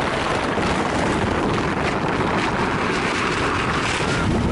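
Steady rush of wind on the microphone mixed with the hiss of a sledding pad sliding fast down an ice slide.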